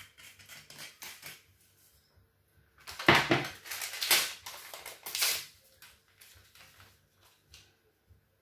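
Kitchen handling noises: clicks and knocks of utensils and containers, with a louder rustling, scraping stretch in the middle as flour is scooped out to add to the batter. The hand mixer is not running.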